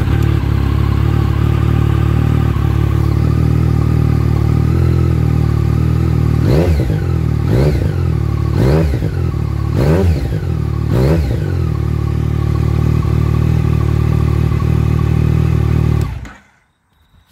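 2015 Yamaha Tracer's three-cylinder engine running through a Black Widow aftermarket exhaust: idling steadily, then revved in five quick throttle blips about a second apart, then idling again until it is switched off about a second before the end.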